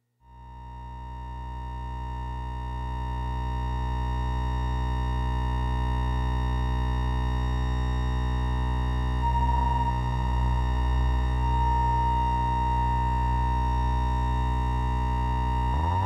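Mutable Instruments Braids synth oscillator in its VOWL (vowel) model, holding one steady note with a rich stack of overtones. It swells in over the first few seconds and wavers briefly in the middle. Right at the end its pitch starts to glide upward as control voltage from the looper's knob reaches the oscillator's pitch input.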